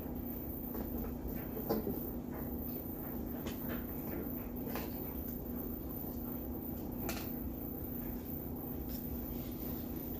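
A few scattered light clicks and knocks from a takeout food container being handled during a meal, over a steady low hum.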